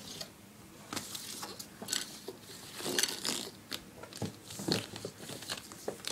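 Irregular clicks and rustling of a hand brushing and tapping along plastic video-game cases on a shelf.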